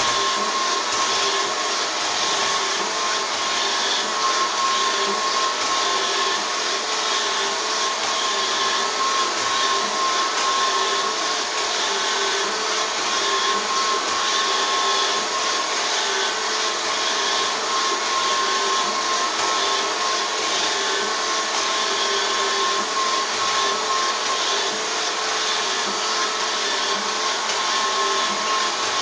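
Robot vacuum cleaner running steadily, its motor making an even whir with a constant tone in it. It is the sound of a robot vacuum that keeps cleaning over the same spot.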